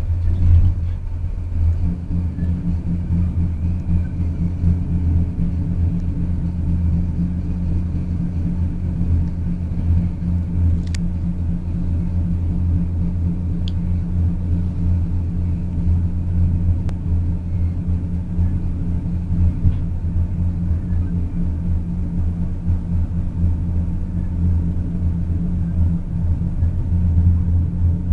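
Train running, heard from inside the carriage: a steady low rumble of the ride, with two faint short clicks in the middle.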